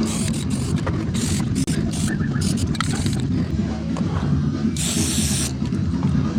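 Aerosol spray paint can hissing in several short bursts, with a longer spray about five seconds in.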